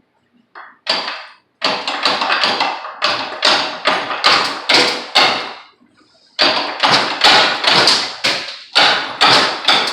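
Hammer blows on metal in quick runs, about three strikes a second, each ringing briefly, with a short break a little past the middle. They are driving a stuck pump off the pressure washer engine's shaft.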